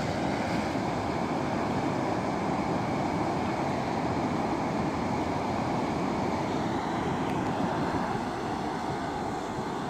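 Steady rushing of river water spilling over a low weir, mixed with wind buffeting the microphone; a little quieter near the end.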